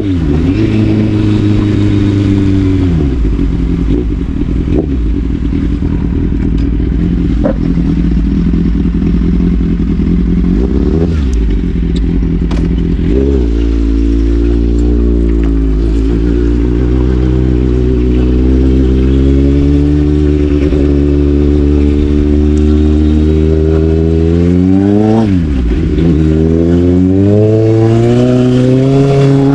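Sportbike engine under way, the revs rising and falling with the throttle: an early drop in pitch, then a long steady climb through the second half, a quick dip and a fresh climb near the end.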